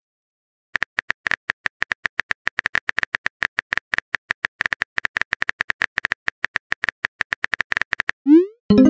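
Rapid simulated phone-keyboard typing clicks, about ten a second, as a text message is typed letter by letter. Near the end a short rising swoop and a tone sound as the message is sent.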